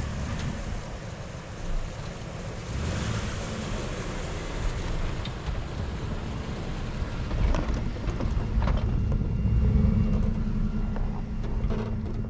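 Ford Ranger pickup driving past through deep snow, its engine running steadily under load, loudest as it passes about two-thirds of the way in.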